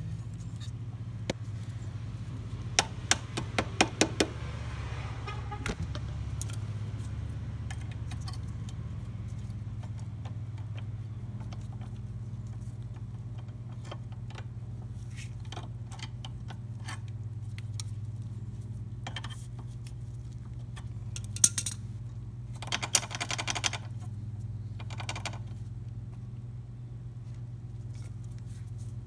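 Scattered metallic clicks and clinks of a Buell XB rear footpeg's retaining clip and pin being worked off by hand. There is a cluster of clicks a few seconds in and another about three-quarters of the way through, over a steady low hum.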